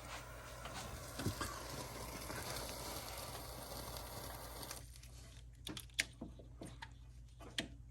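A handheld gas torch flame hissing steadily while it heats a battery cable terminal to melt solder into it. The hiss cuts off suddenly about five seconds in, followed by a few sharp metallic clicks.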